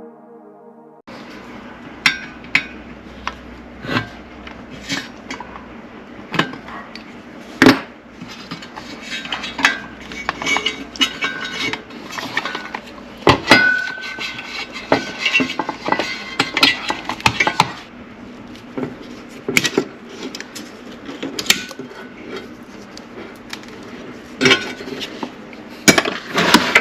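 Irregular clicks, taps and clatter of hand tools and plastic and metal parts being handled during a car dash and navigation-unit install, with one brief high squeak about halfway through. A few seconds of music end about a second in.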